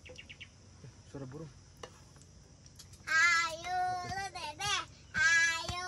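A young child singing loudly in two short phrases, starting about three seconds in, with some notes held.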